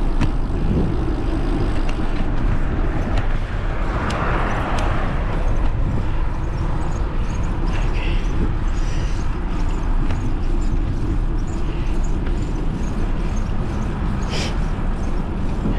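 Steady, loud road-traffic noise heard from a moving bicycle, with vehicles running past.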